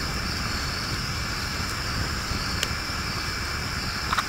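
Steady background hiss with a faint high steady hum, and a couple of light clicks as a knife tip picks at cooked periwinkle shells on a flat stone, once past halfway and again near the end.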